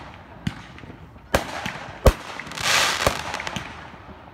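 Aerial fireworks going off: a string of sharp bangs from bursting shells, the loudest about two seconds in. Just after it comes about half a second of hissing, and then another bang.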